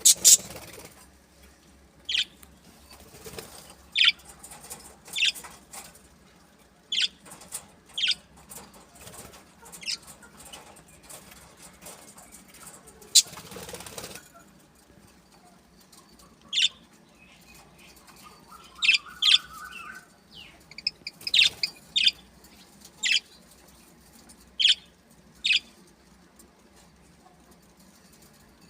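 Birds flapping their wings, with about twenty short, sharp, high-pitched chirps at irregular intervals, spaced a second or two apart.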